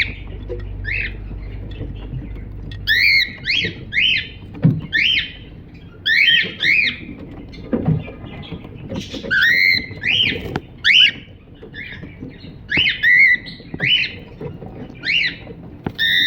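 Cockatiel chirping: short, arching chirps repeated in quick clusters of a few per second, with brief pauses between the runs.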